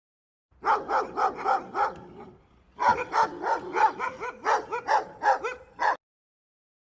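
An animal calling in quick, short, pitched yaps, about four to five a second, in two runs with a brief break between them. The calls stop abruptly near the end.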